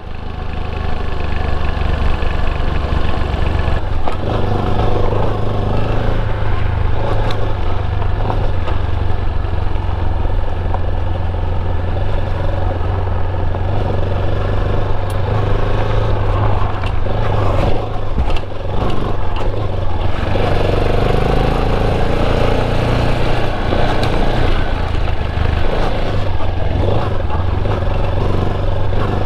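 Motorcycle running at a steady riding speed: a continuous, loud engine drone that holds steady throughout, with a brief dip about eighteen seconds in.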